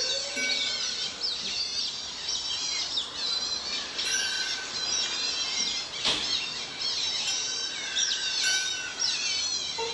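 Dense chorus of many birds chirping over one another in quick falling notes. A short, steady whistled note comes in a few times, and there is one sharp click about six seconds in.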